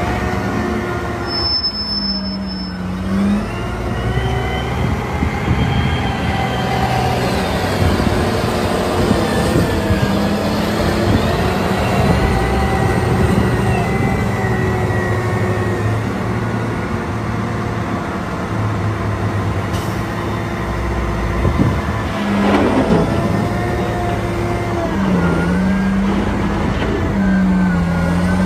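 Diesel engine of a Caterpillar 990 wheel loader working, its pitch rising and falling as it revs to lift and dump the loaded bucket. There is a brief louder burst of noise about two-thirds of the way through.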